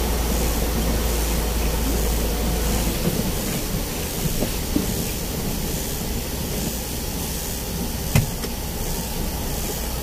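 Vehicle cab interior while driving on a wet road: steady engine rumble and tyre hiss. The deepest rumble drops off about three seconds in, and there is a single sharp knock near the end.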